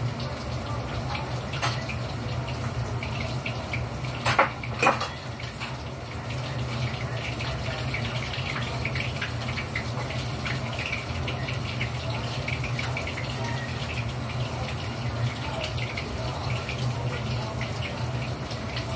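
Tap water running into a kitchen sink as dishes are washed, with a few sharp knocks of dishware; the two loudest come close together about four to five seconds in.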